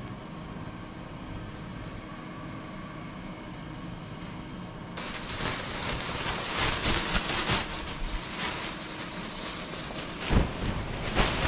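Clear plastic grow-tent cover rustling and crinkling as a hand presses it and pulls it aside, starting suddenly about five seconds in, with two sharp bumps near the end. Before that, only a steady low hum.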